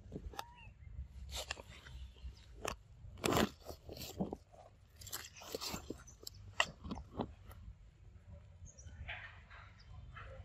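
Irregular crunching and crackling of dry leaves and twigs, many sharp cracks at an uneven pace, then a softer rustle about nine seconds in.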